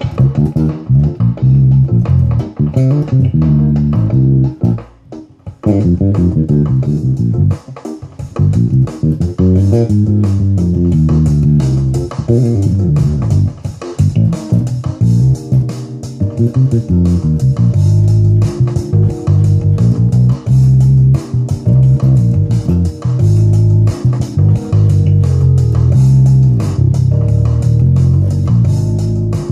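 Electric bass guitar played fingerstyle in a funky groove along with a backing track. The sound thins out briefly about five seconds in, then the groove carries on steadily.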